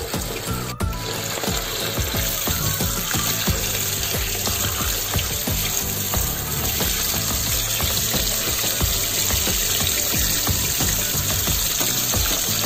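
Tap water running steadily onto half-cooked rice in a metal mesh strainer, rinsing the starchy cooking water off the rice, with background music playing.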